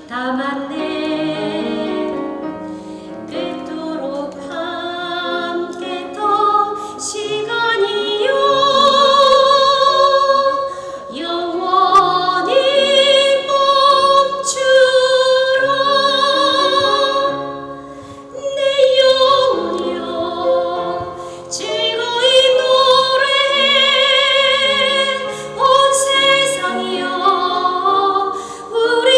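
A woman singing in a classical, operatic style, holding long notes with vibrato over an instrumental accompaniment.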